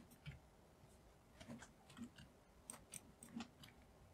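Near silence broken by a dozen or so faint, scattered clicks from a computer mouse and keyboard.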